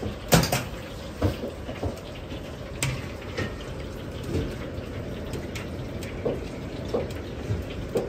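Kitchen noise at a wok range: a steady background rush with irregular clicks and knocks, the sharpest one just after the start.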